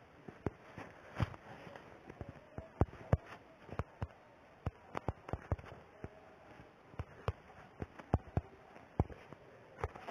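Irregular sharp pops and clicks, about three a second at uneven spacing, over a faint steady hum: audio crackle from a faulty sound channel.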